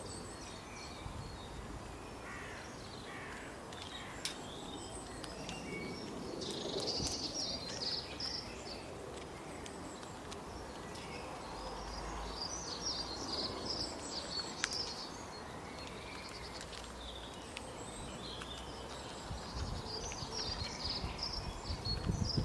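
Birds chirping and twittering in short flurries over steady outdoor background noise, with a couple of faint sharp clicks.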